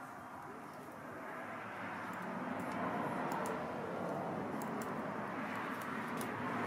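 Noise of a passing vehicle, growing louder about two seconds in, with a few faint high clicks.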